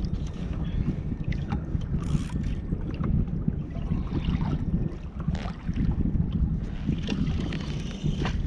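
Wind buffeting the camera microphone in a steady low rumble, with water lapping at a kayak hull and scattered light knocks and clicks of fishing gear.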